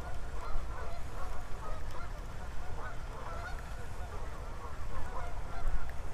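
A flock of geese honking, many overlapping calls throughout, over a low rumble.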